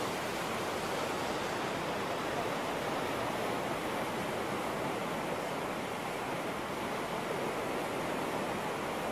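Whitewater rapids on a canoe slalom course, rushing steadily and evenly.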